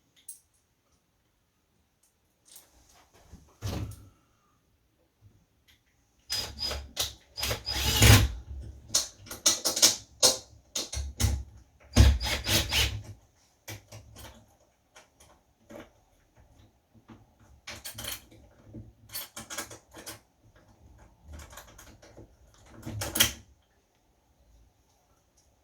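Bursts of irregular clicking and scraping as small screws are driven by hand into the metal plate of a door latch set in the door edge, in two spells with quiet between them.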